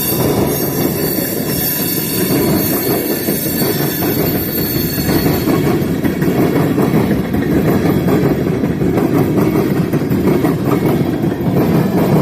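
Freight train cars rolling past with a steady rumble of wheels on rail. A high-pitched wheel squeal fades away about halfway through.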